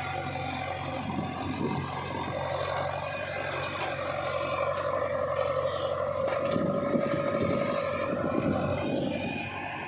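JCB 3DX backhoe loader's diesel engine running steadily while digging. It works harder and grows louder from about five seconds in, then eases back near the end.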